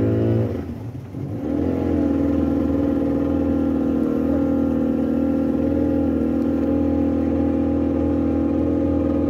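An engine running. About half a second in it drops in pitch and quietens, as if throttled back, then picks up again within a second and runs on steadily at an even pitch.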